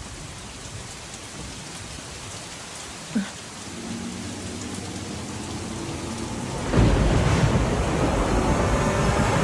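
Heavy rain pouring down steadily, with a brief chirp about three seconds in. A deep rumble comes in suddenly about seven seconds in and the downpour grows louder.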